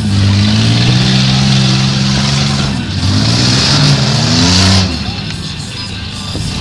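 Demolition derby car engine revving hard, its pitch rising and falling, then dropping off sharply about five seconds in. Music from the loudspeakers plays underneath.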